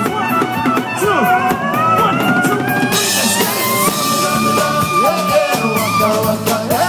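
Loud upbeat dance music with a steady beat, a long held high note through the middle.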